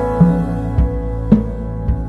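Instrumental background music: a calm melody of separate plucked or struck notes, a new one about every half second, over held low bass notes.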